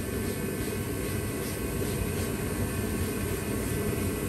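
A steady low drone of machinery or fan-like noise, holding an even level throughout.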